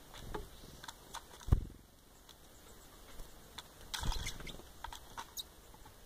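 Great tits and a blue tit at a plastic bowl of oat flakes: scattered sharp taps and clicks of beaks pecking and feet on the plastic, with low thumps as birds land, the loudest about a second and a half in and another cluster around four seconds in.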